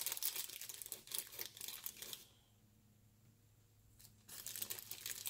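Crinkling and rustling of a clear plastic parts bag being handled, in quick irregular crackles. It stops for about two seconds in the middle, then starts again.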